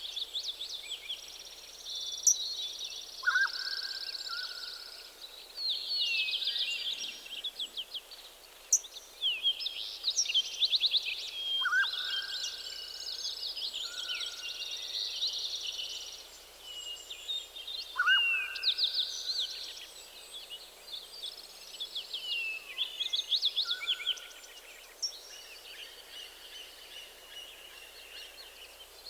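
Several songbirds singing together in a forest dawn chorus, with rapid high chirping and trilled phrases overlapping continuously. A lower, clear whistled note that starts sharply and then trails off sounds every several seconds.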